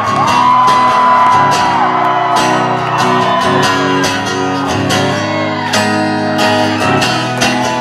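Live rock band playing loud, guitar to the fore, with sustained chords and scattered drum or cymbal hits. A long held note bends up at the start and slides down about two seconds in, with shouts above the band.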